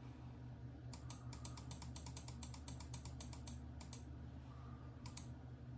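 Quick run of small, sharp computer mouse clicks, about seven a second for nearly three seconds, then a few single clicks, stepping a menu list down one item at a time. A faint steady low hum runs underneath.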